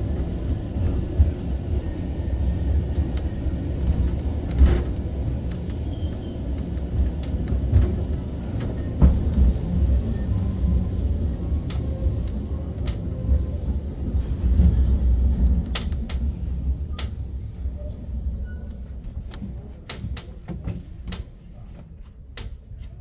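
Vintage tram running on its rails: a steady low rumble from the wheels and motors, with scattered clicks and knocks. The rumble dies down over the last few seconds, leaving only odd clicks.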